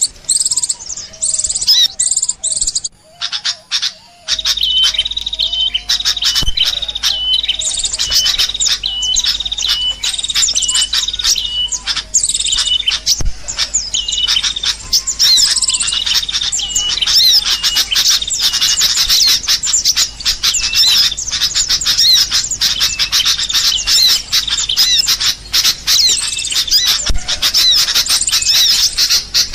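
Many birds chirping and calling at once in a dense chorus, one of them repeating the same short note over and over.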